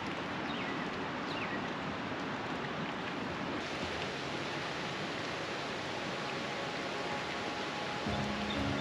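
Steady rain hiss, with a couple of short falling bird chirps about a second in. Music comes in near the end.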